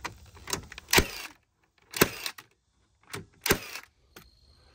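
Milwaukee cordless nailer firing nails into wooden blocking between floor joists: a string of sharp shots, the three loudest about a second apart, with lighter mechanical clicks between.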